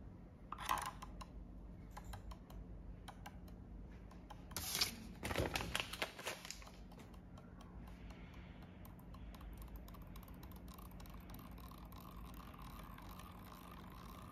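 Hands crinkling and clicking plastic candy wrappers and packaging: a short crinkle about half a second in, scattered small clicks, then a louder run of crinkling about five seconds in, fading to faint ticks.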